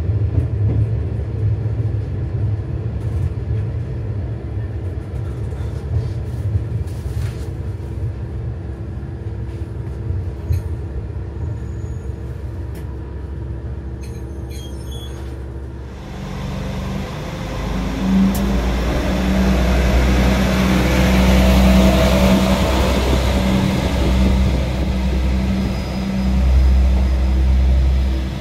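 Steady low rumble of a JR West KiHa 120 diesel railcar's engine and wheels, heard on board. About halfway through the sound cuts to trackside, where a diesel railcar's engine hums low and a rush of running noise swells as it approaches.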